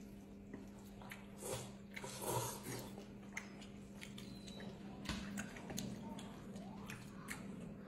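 People eating mixed noodles: slurping and chewing in short bursts, with scattered light clicks of chopsticks against the plate and bowl, over a steady hum.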